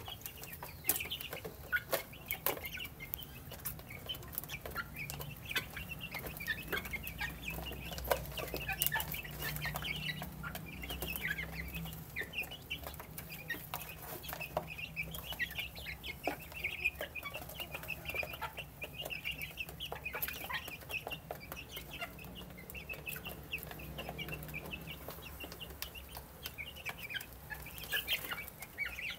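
A flock of young chickens cheeping continually in short high calls while they eat, with many sharp little taps, the sound of beaks pecking at the feed dish and wooden floor.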